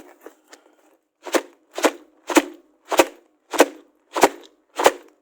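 A few faint clicks, then a steady run of about eight sharp knocks roughly every 0.6 s.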